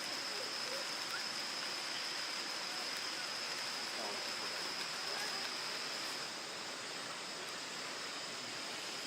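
Babbling stream, a steady rush of flowing water, with a thin steady high-pitched tone over it.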